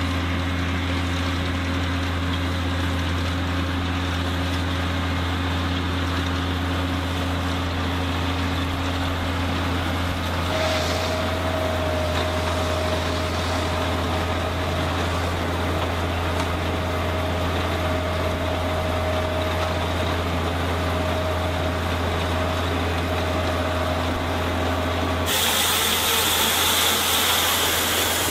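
New Holland T6050 tractor engine running steadily under load as it drives a Kuhn round baler-wrapper. About 25 s in, a loud hiss comes in over the engine.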